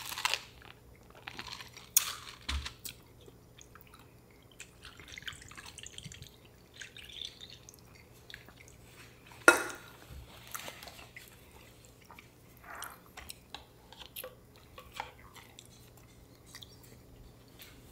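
Quiet eating sounds: chewing and scattered light clicks of cutlery on plates and dishes, with one sharper clink about nine and a half seconds in.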